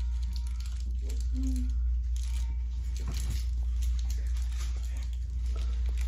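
Steady low hum with clothing rustling and rubbing against the phone's microphone. A brief vocal sound comes about a second and a half in.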